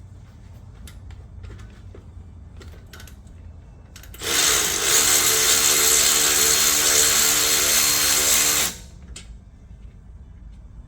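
Cordless power tool running steadily for about four and a half seconds, starting about four seconds in and cutting off abruptly. It is driving a 9 mm Allen bit to loosen the brake caliper's Allen bolts.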